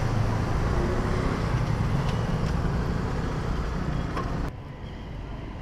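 Motorcycle engine running at low speed as the bike pulls up and stops at the kerb, under street traffic noise. About four and a half seconds in, the noise drops suddenly to a quieter low rumble.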